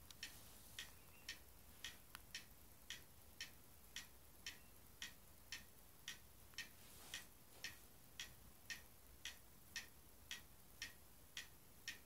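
A clock ticking faintly and evenly, about two ticks a second.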